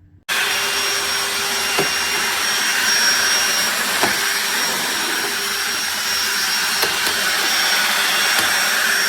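DeWalt DCV501HB 20V cordless handheld vacuum running steadily with a high whine. It starts abruptly near the beginning, with a few faint ticks of debris along the way.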